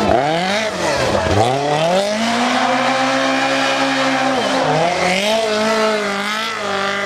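Lancia 037 rally car's supercharged four-cylinder engine revving hard. It drops and climbs in pitch quickly through gear changes in the first two seconds, holds a high steady note for about two seconds, dips briefly and climbs again near the end.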